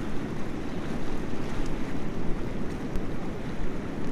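Rushing, churning water sound effect: a steady dense noise of swirling water, with no clear pitch or rhythm.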